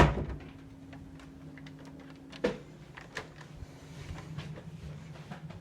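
Scattered light clicks and taps over a steady low hum, with a sharp knock at the very start and another about two and a half seconds in.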